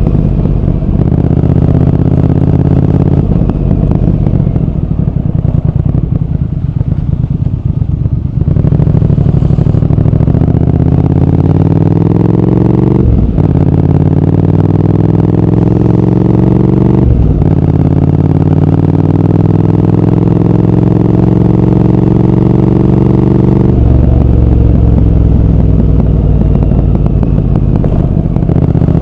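Triumph Speed Twin 1200's parallel-twin engine and exhaust on the move. It runs steadily, then accelerates from about eight seconds in with the note rising. Two quick upshifts come a few seconds apart, each dropping the pitch before it climbs again. The note falls near the end as the throttle closes.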